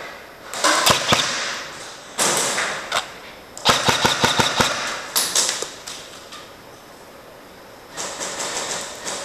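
Airsoft electric rifles (AEGs) firing in about five short bursts: the motor whirs and the gearbox cycles rapidly as each burst fires.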